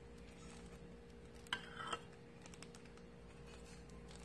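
Metal spoon scraping and knocking against a bowl as thick tomato sauce is scooped out: two short knocks about a second and a half in, then light scrapes, over a faint steady hum.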